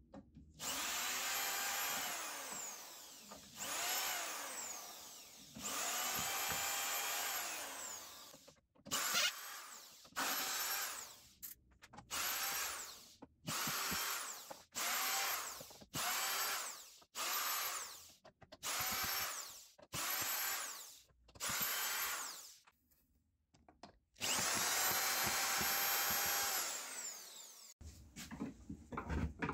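Cordless drill-driver backing screws out of a wooden speaker cabinet panel: about a dozen separate motor whines, each rising in pitch as it spins up and falling as it stops. The longer runs come at the start and near the end, with a string of short one-second runs between.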